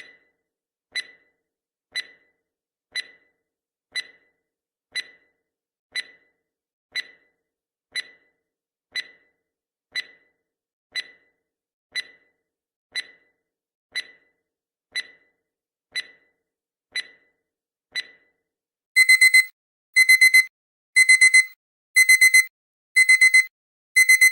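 Countdown timer sound effect: a short tick once a second for about nineteen seconds, then a loud digital alarm-clock beeping in quick clusters of high beeps, about one cluster a second, signalling that the countdown has run out.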